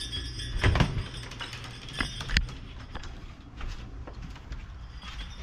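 Footsteps and handling noise as a camera is carried while walking: a few sharp knocks and dull thuds with some rubbing.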